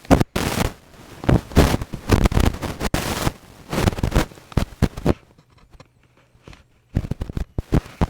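A rapid, irregular series of loud bangs and cracks, with a pause of about two seconds near the middle before they start again.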